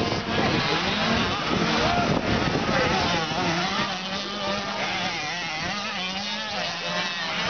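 A pack of 85cc two-stroke motocross bikes racing around a dirt track. Several engines overlap, each revving up and down in pitch as the riders work the throttle through the jumps and turns.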